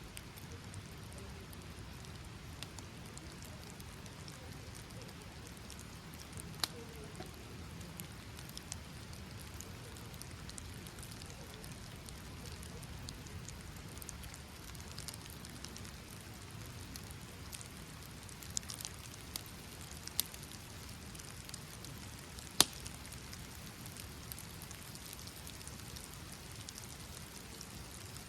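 Steady rain falling, an even hiss with a low rumble underneath, broken now and then by single sharp ticks, the loudest about three-quarters of the way through.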